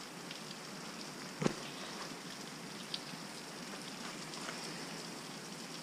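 Steady hiss of creek water running, with a brief knock about a second and a half in and a fainter tick near three seconds.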